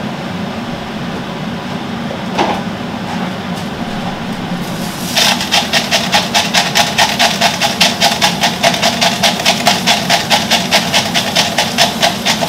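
Salt mill being twisted over a pot, a fast even run of gritty grinding strokes about four a second that starts about five seconds in, over the steady hum of a kitchen extractor fan. A single click comes a couple of seconds in.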